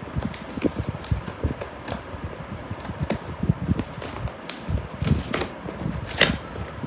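Scissors snipping and scraping through plastic packing tape on a cardboard shipping box, mixed with dull knocks and rustles as the box is handled. One sharp snap near the end is louder than the rest.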